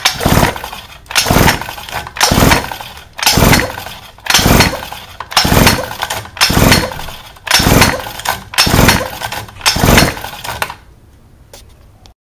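Recoil pull starter on a 49cc pocket bike engine yanked about ten times, roughly once a second, spinning the engine over with the spark plug out for a spark test. Each pull is a short whirring burst that fades, and the pulls stop about a second before the end.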